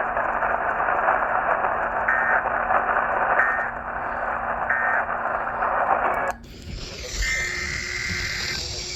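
Hissing radio static with three short, evenly spaced bursts of warbling EAS digital data, the end-of-message code that closes an emergency alert test. About six seconds in the sound cuts to a different, cleaner recording, and near the end a longer burst of the same kind of data begins: the opening SAME header of the next alert.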